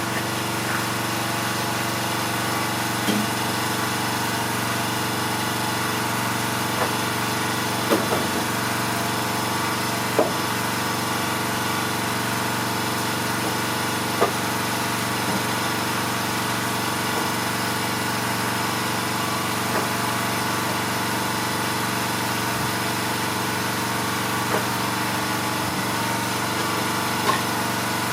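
Small gasoline engine running at a steady, unchanging speed, with a few short sharp knocks over the top.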